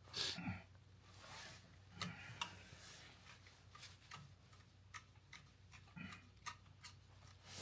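Faint scattered clicks and small handling rustles, irregular, a little louder just after the start and around two seconds in.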